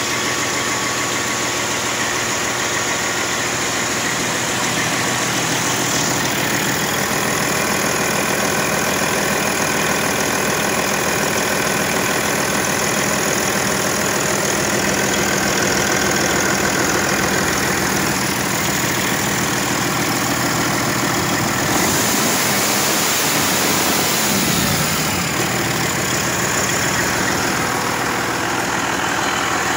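Detroit Diesel Series 60 12.7-litre inline-six diesel engine idling steadily, with the engine fan turning. It gets slightly louder for a few seconds about three-quarters of the way through.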